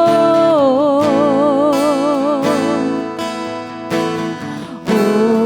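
Worship song with acoustic guitar: a voice holds a long wavering note in the first half, the accompaniment carries on more quietly for a moment, and the singing comes back in near the end.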